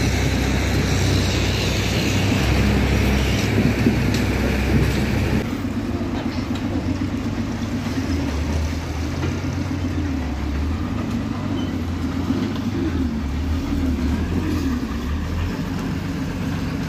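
Heavy diesel truck engine running steadily as the truck drives through flooded mud, with a loud rushing noise over it for the first five seconds. About five seconds in the sound changes abruptly to a steadier low engine rumble.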